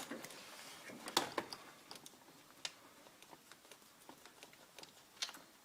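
Faint, scattered small metallic clicks and ticks as the level (middle) bolt of a Toyota Starlet EP82/EP91 manual gearbox is unscrewed, with a couple of sharper clicks about a second in and near the end.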